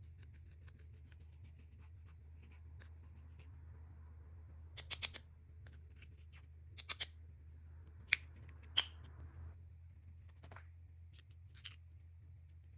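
Hands working slime with makeup and glitter: faint scraping with sharp little clicks and taps, a quick group of three about five seconds in, then two, then two single louder clicks. A low steady hum runs underneath.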